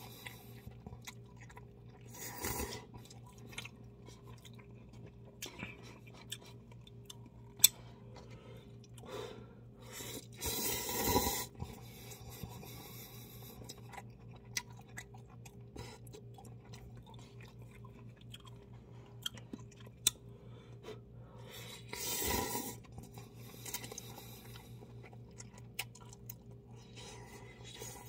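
A man eating cup ramen: noodles slurped loudly three times, the longest slurp around the middle, with quieter chewing in between and a few sharp clicks. A faint steady hum runs underneath.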